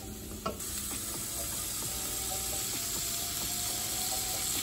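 Radish slices frying in oil in a stainless-steel pan, a steady sizzle. A wooden spoon knocks once against the pan about half a second in.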